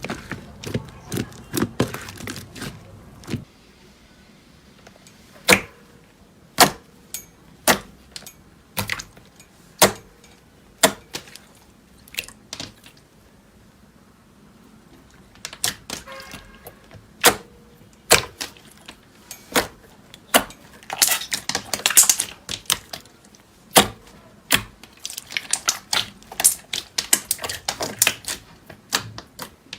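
Slime being pressed and stretched, giving sharp irregular clicks and pops of trapped air, with denser runs of crackling past the middle and again near the end.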